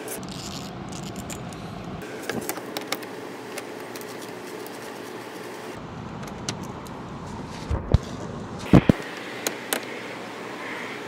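Scattered, irregular metallic clicks and clinks of a hand ratchet and socket working screws loose on the underside of a car's front bumper, over a steady background hiss. The loudest clinks come a little before the end.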